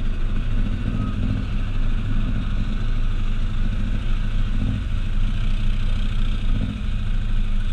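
Off-road vehicle engine running steadily at low speed, a low even drone with no revving.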